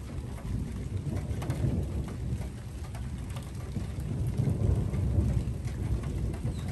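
Thunderstorm: rain falling with a low rumble of thunder that swells twice.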